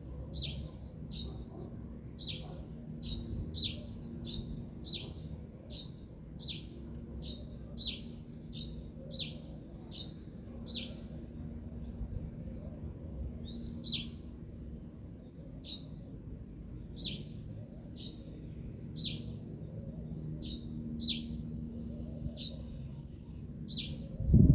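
A songbird repeating a short, sharply falling chirp, about one to two a second, over a steady low rumble.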